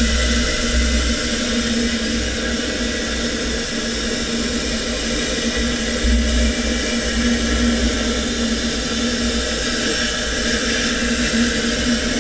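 Robot-mounted CNC plasma torch cutting steel: the plasma arc makes a steady hiss, with a constant hum underneath.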